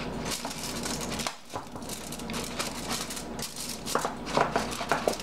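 Aluminum foil crinkling and crackling as hands press it into and around a springform pan.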